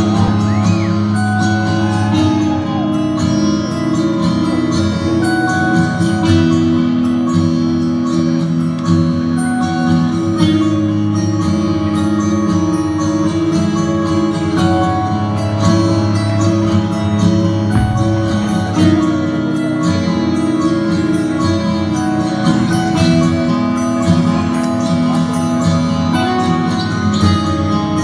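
A metal band playing live and loud, recorded from the audience: electric guitars and bass holding sustained chords over drums with constant cymbal hits.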